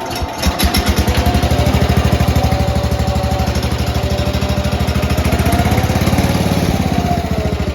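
Cub Cadet 108 lawn tractor's single-cylinder engine running steadily with an even, rapid putter of roughly ten beats a second.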